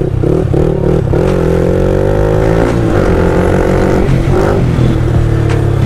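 Yamaha R15 V3's single-cylinder engine running loud through an SC Project aftermarket exhaust as the bike is ridden. It climbs in pitch for over a second as it accelerates, drops back about halfway through, then holds steady.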